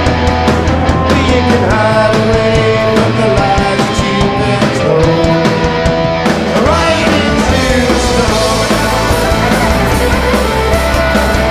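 Live rock band playing: fiddle, electric and acoustic guitars, bass and drum kit together, with gliding fiddle notes.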